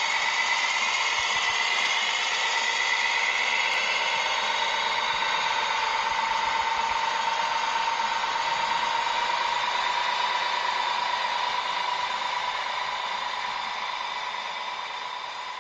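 Small electric motor and gearbox of an RC construction model whining steadily, its pitch rising slowly, then fading away near the end.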